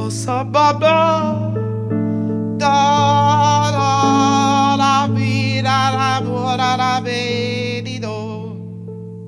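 A woman sings long, held notes with vibrato over sustained piano and keyboard chords and a low held bass note, in a slow jazz ballad.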